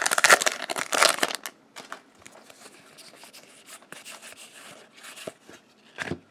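Foil Magic: The Gathering booster pack wrapper crinkling as it is torn open and handled, loudest in the first second and a half. Then softer rustling as the cards are slid out of the pack.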